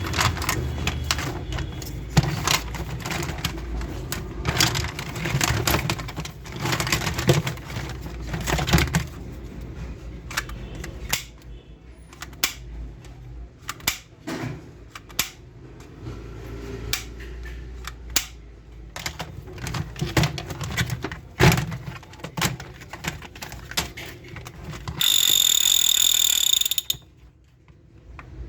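Plastic toy gun being handled and worked on, with many sharp clicks and knocks of its plastic parts. About 25 s in, a loud, steady, high-pitched electronic tone sounds for about two seconds and cuts off suddenly.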